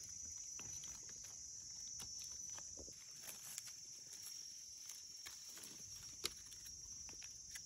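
Steady high-pitched insect drone with faint rustling of dry leaves and soft scattered clicks as a knife digs a mushroom out of the leaf litter; one sharper click about six seconds in.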